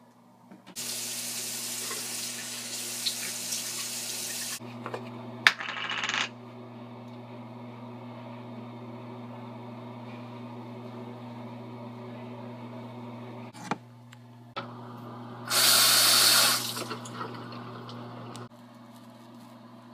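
Bathroom sink tap running into the basin in spells: a steady stream for about four seconds near the start, a short splash about five to six seconds in, and a louder gush of about a second near the end. A sharp click comes about five and a half seconds in, and a steady low hum runs underneath.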